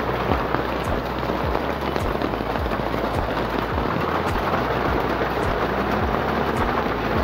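Heavy rain pouring down steadily, a dense even hiss of rain on the ground and the shelter roof overhead.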